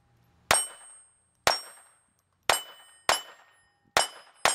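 Six sharp metallic clangs, each ringing briefly at a steady high pitch, about a second apart, the last two closer together.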